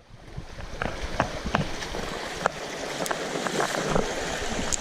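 Small stream running: a steady rush of water, fading in at the start, with scattered small ticks and splashes on top.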